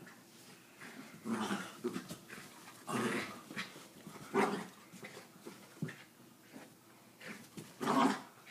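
Small dog growling in short bursts, about four times, as it tugs and shakes a towel in a game of tug.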